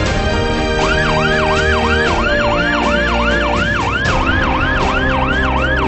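Ambulance siren in fast yelp mode, sweeping up and down about three times a second, starting about a second in, over background music.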